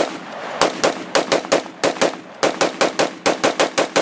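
AR-15 rifle with a flash suppressor fired in fast semi-automatic strings, about six shots a second. The firing pauses briefly just after the start and again just after two seconds in.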